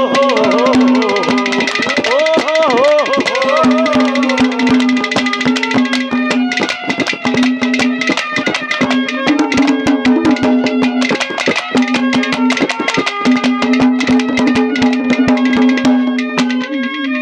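Live Haryanvi ragni folk music played instrumentally: fast, dense hand-drum strokes over a steady held drone note, with a wavering melody line over it for the first few seconds.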